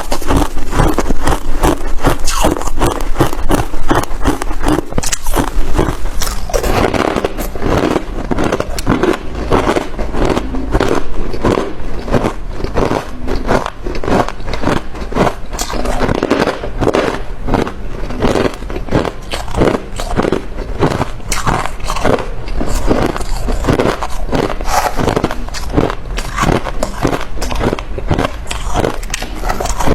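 A person biting and chewing crunchy white ice, a fast, continuous run of crunches and cracks, a little louder in the first six seconds.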